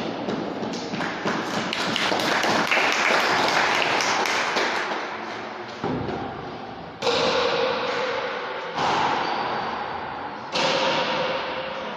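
Pala goma argentina rally: the rubber ball cracking off wooden paddles and rebounding off the court walls, sharp hits that ring on in the large echoing court, with three loud distinct strikes in the second half.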